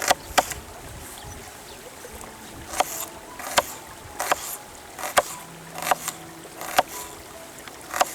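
A series of sharp knocks and clicks at uneven intervals, some with a short ring after them.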